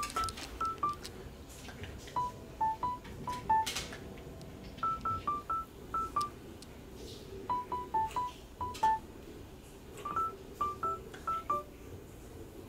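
Background music: a simple repeating tune of short, high electronic beeps, stepping down in pairs, with a new phrase about every two and a half seconds.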